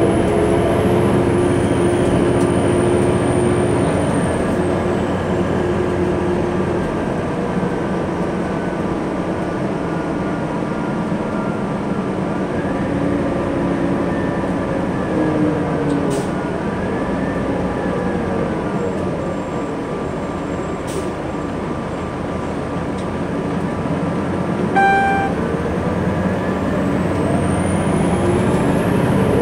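Cabin sound of a New Flyer D60LF articulated diesel bus under way: its Detroit Diesel Series 50 engine and Allison automatic transmission running, the pitch sliding up and down with speed and rising as the bus pulls ahead near the end. A short electronic beep sounds a few seconds before the end.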